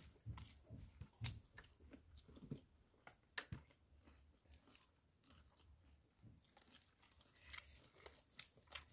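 A person eating by hand and chewing, with faint crunches and small wet mouth clicks, most of them in the first three seconds and a few more near the end.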